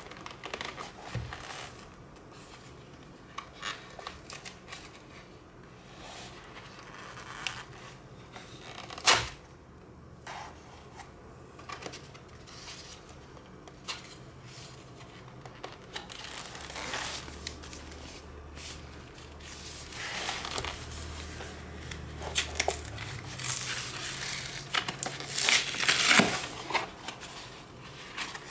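A glued paperboard carton being handled and its end flap pulled open: scattered taps and rustles, a sharp knock about 9 s in, then louder tearing of the glued cardboard flap near the end.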